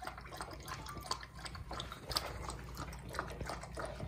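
A dog lapping water greedily from a ceramic bowl: a quick, continuous run of short wet laps and drips.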